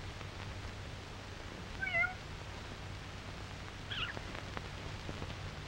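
Young kitten mewing twice, two short high calls about two seconds apart, over a steady low hum.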